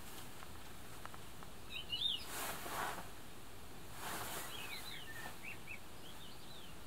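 Songbird chirping in short, quick high phrases, once about two seconds in and again in a longer run in the second half, over a steady background hiss. Two brief rushes of soft noise come between the phrases.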